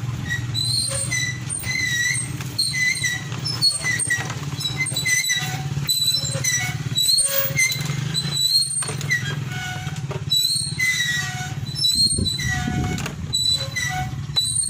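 Engine oil glugging and trickling as it pours from a plastic jug through a plastic funnel into the engine's filler, over a steady low hum. Many short, high chirps come and go throughout.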